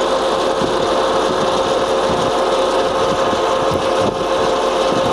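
San Yuen GF2000A centre lathe running steadily in high range at its fastest spindle speed, 1000 RPM: an even mechanical hum of the headstock gears and motor with a steady mid-pitched tone.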